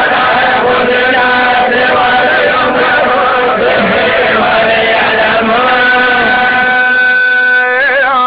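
Male voices chanting Quran recitation together in unison, in long held notes. A long sustained note near the end closes with a wavering ornament.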